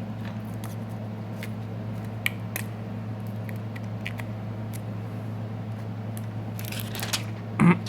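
Light clicks and taps of small phone parts and a replacement screen being handled on a Samsung Galaxy S6 frame, over a steady low electrical hum.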